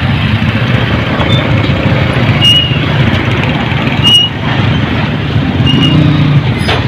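Road traffic: motorbikes and cars passing close, their engines running in a steady din, with three short high-pitched chirps spread across it.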